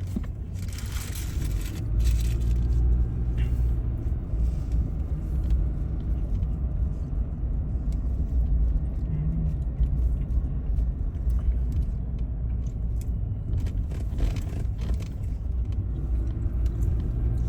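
Car driving, heard from inside the cabin: a steady low rumble of engine and tyres on the road, with a brief hiss near the start.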